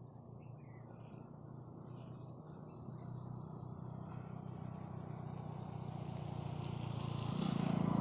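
Mahindra Mojo's single-cylinder engine running faintly at low speed, growing steadily louder toward the end, with faint insect chirping.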